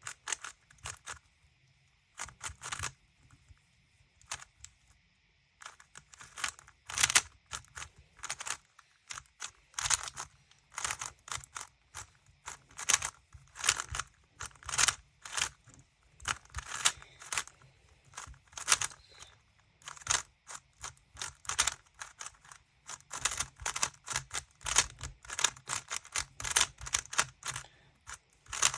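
Packaging being opened by hand: rapid, irregular tearing, scratching and crinkling of a cube box's wrapping and cardboard, with a short lull a few seconds in.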